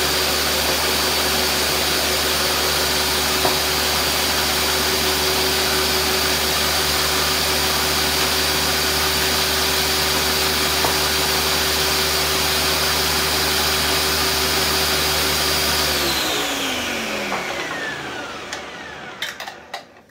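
Countertop blender running at full speed, blending a cashew-cheese mixture with a steady high whine. About 16 seconds in it is switched off and the motor spins down, its pitch falling away, followed by a few light clicks.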